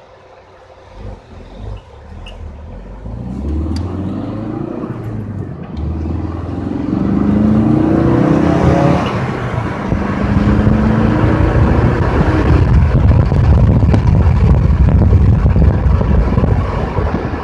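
A 2016 Ford Focus RS's 2.3-litre turbocharged four-cylinder engine, heard from inside the cabin. After two short revs, it pulls away hard from a stop, the revs climbing and dropping at each upshift. From about ten seconds in, a loud, steady rumble of engine and road noise at speed takes over.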